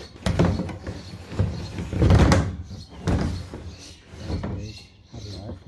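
Several knocks and thuds of things being handled, the loudest and longest about two seconds in.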